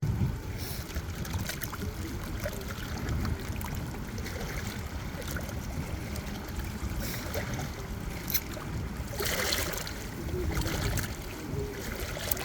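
Water lapping and splashing, with a steady low rumble of wind on the microphone; the hissing splashes swell unevenly, the loudest about nine seconds in.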